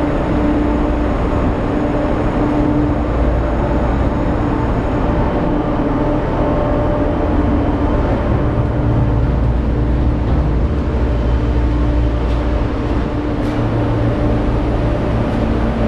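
Steady machinery drone aboard a container ship: a low rumble with a steady hum over it, and a few faint clicks in the last few seconds.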